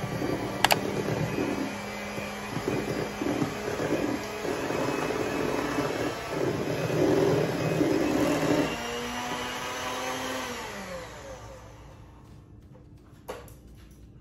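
Electric hand mixer running, its beaters whirring through cake batter in a stainless steel bowl. The motor winds down and stops about ten seconds in, and a short knock follows near the end.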